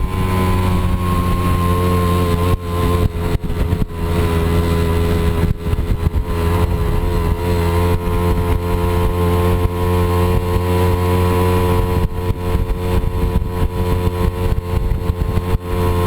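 Moped scooter's small engine running at a near-steady pitch while riding, with frequent short knocks and rattles over the engine note.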